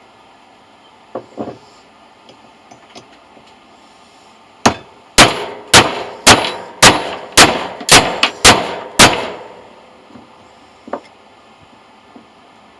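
Hammer striking metal: nine sharp, ringing blows about two a second, the first one lighter, with a couple of lighter knocks before them and one after.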